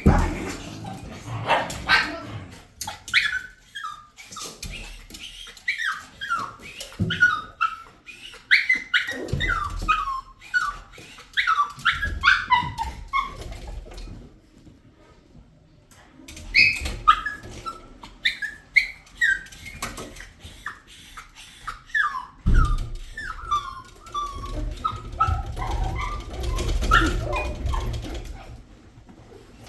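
A dog whining and yipping in many short, falling calls, with a pause about halfway through. A low rumble runs under the later calls.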